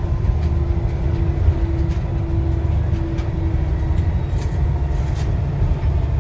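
Volvo B7TL bus's turbocharged diesel engine running with a steady low drone and a held tone that fades out about four seconds in, with a few light rattles.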